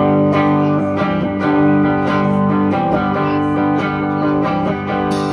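Amplified electric guitars playing a song's intro live, with held, ringing chords that change every second or so and no drums yet.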